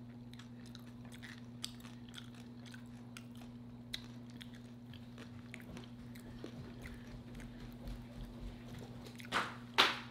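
Close-miked chewing and crunching of crunchy food, with many small mouth clicks. Two louder crunches come near the end.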